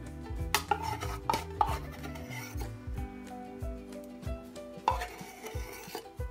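Metal spoon scraping and knocking as spoonfuls of sweetened condensed milk are scooped and added to the bowl, in two bouts, about half a second in and again near five seconds. Background music runs under it.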